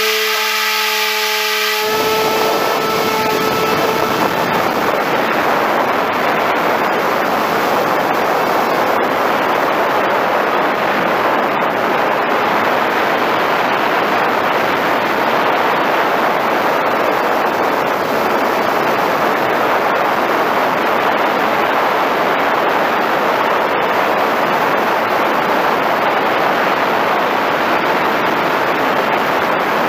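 Electric motor of an FPV Raptor RC plane at full throttle, heard through its onboard camera: a steady whine for about the first two seconds at launch, then a loud, even rush of wind and motor noise as the plane climbs.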